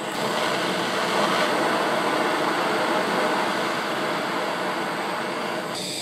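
Handheld propane torch burning with a steady hiss, its flame heating a copper cable lug until it is hot enough for solder to flow in. The hiss eases slightly near the end.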